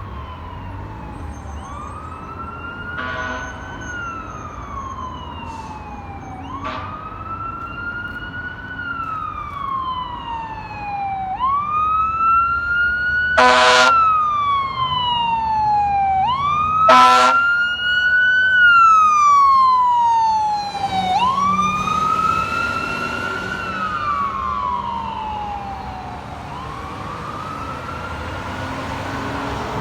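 Fire truck siren wailing, rising and falling about every three and a half seconds, with four blasts of the air horn, the loudest two near the middle. The siren swells toward the middle and fades near the end.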